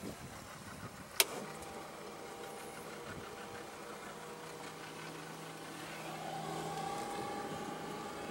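A rocker switch clicks about a second in, and right after it the boat's engine-compartment blower fan starts and runs with a steady hum that grows a little louder near the end: the blower airing out gasoline vapours from the engine bay.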